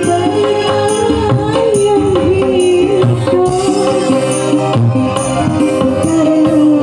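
Live dangdut band music: a woman sings a wavering melody over electronic keyboard, electric guitar and dangdut hand drums (kendang) keeping a steady beat.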